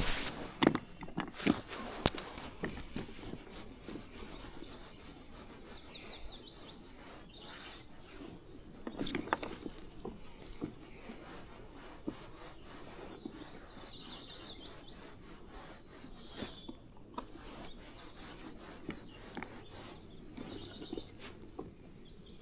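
A songbird sings a short, high, trilled phrase three times, roughly seven seconds apart, over a steady outdoor hiss. A few sharp clicks and knocks of handling come in the first two seconds.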